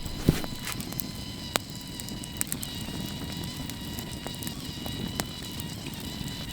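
Campfire of split wood burning with a steady low rush and a few sharp pops, the loudest near the start, under a faint steady high whine.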